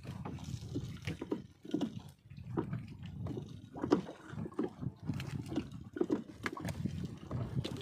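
Wet gillnet being hauled into a wooden boat and fish worked out of it: water dripping and splashing, with irregular small knocks and rustles over a steady low rumble.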